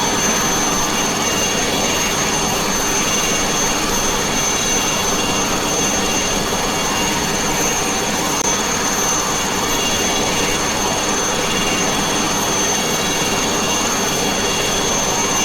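Bell 47 helicopter in flight, its piston engine and rotor running steadily: a dense, even rush with a steady high whine on top.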